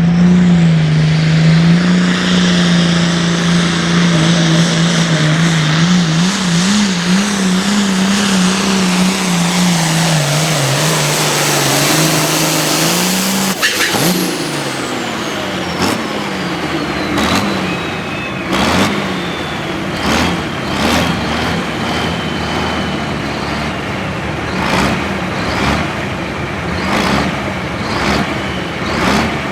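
Hot farm pulling tractor's turbocharged diesel engine running flat out under load for about thirteen seconds. Then the throttle is cut and a whistle falls away, and the engine is revved in short repeated blips.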